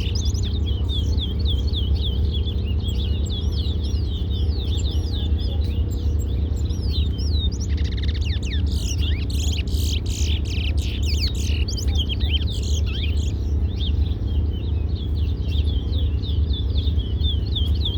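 Small finches singing continuously: rapid chirping notes that sweep quickly up and down, several birds overlapping, over a steady low hum.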